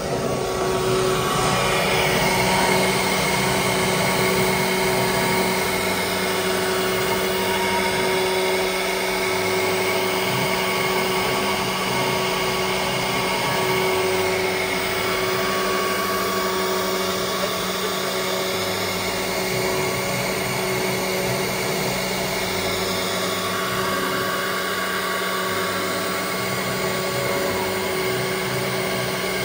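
CNC router with a 6 kW HSD spindle running, a steady machine whine made of several held tones over a broad hum.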